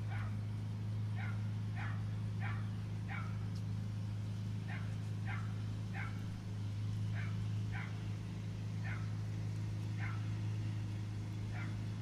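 A dog barking repeatedly, about a dozen short barks at uneven intervals, over a steady low hum.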